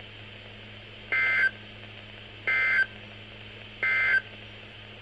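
Three short bursts of two-tone digital data squeal from a NOAA Weather Radio Emergency Alert System broadcast, each about a third of a second long and a little over a second apart. This is the SAME end-of-message code, which marks the end of the severe thunderstorm warning.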